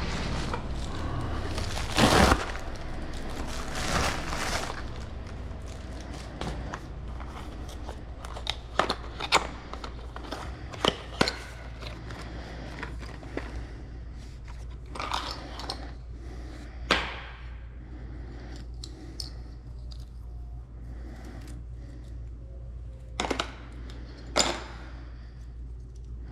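Things being handled: scattered clicks, knocks and short scraping or crinkling noises, loudest about two and four seconds in and again near the end, over a steady low hum.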